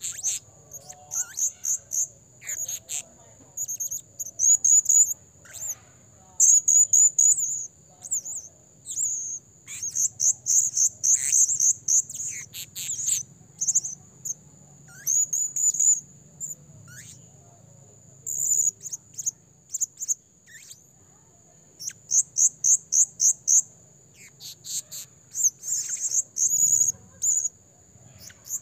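Male blue-crowned hanging parrot (serindit) calling: very high, shrill chirps given in quick bursts of several notes, repeated again and again with short pauses between.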